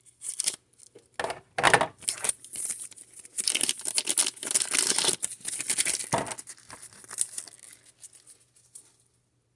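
Foil trading-card pack wrapper being torn open and crinkled: a run of crackling rustles and tears, densest in the middle and dying away near the end.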